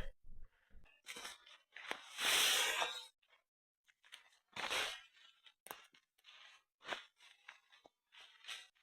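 Footsteps crunching and rustling through dry leaf litter and undergrowth in an irregular series, the loudest and longest about two seconds in.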